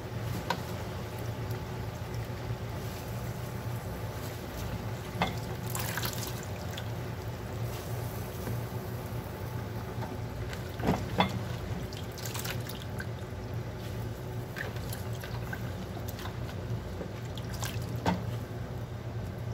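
A pot of chicken simmering with a soft liquid bubbling over a steady low hum, and a few light knocks of a wooden spatula against the pot as leaves are pushed in.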